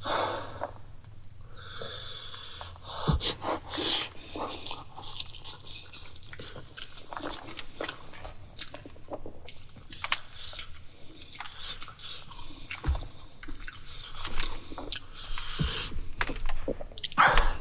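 Close-miked eating: chewing with wet mouth clicks and smacks, unevenly spaced, louder bursts near the start and end.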